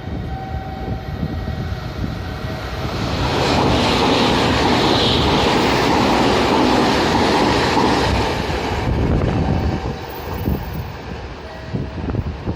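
Train running past the platform, the rail and wheel noise swelling about three seconds in, staying loud for about five seconds, then easing off. There is wind on the microphone throughout.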